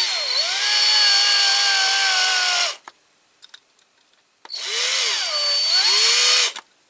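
Electric drill drilling out the rivet that holds a diecast toy car's base plate, in two runs of about two to three seconds with a short pause between. The motor's whine sags in pitch as the bit bites into the metal, then holds steady.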